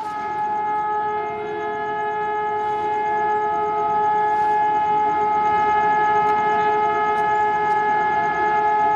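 Horn of a WAP-7 electric locomotive sounding one long, unbroken blast, getting louder as the express approaches at speed, with the rising rumble of the train underneath.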